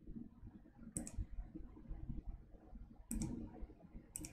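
Quiet handling noise with a few short, sharp clicks: one about a second in, a cluster around three seconds in, and another near the end, as the verse is looked up.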